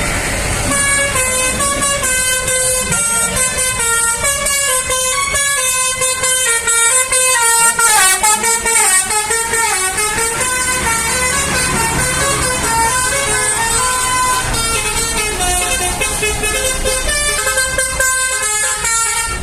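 Indonesian tour bus 'telolet' multi-tone air horn playing a quick tune of stepping notes, over the low running of the bus's engine.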